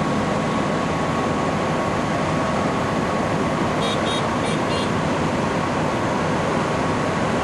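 Steady noise of highway traffic on the interstate, with a few short high chirps about four seconds in.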